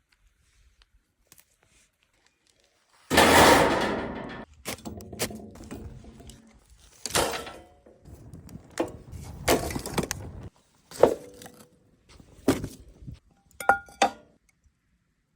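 Cooking sounds at a pan: about three seconds in, a sudden loud hiss fades over a second or so, followed by a series of knocks and scrapes from utensils and two short metallic clinks near the end.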